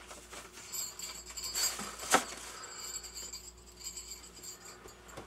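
Faint handling sounds: light rustling and small clicks, with one sharp click a little over two seconds in.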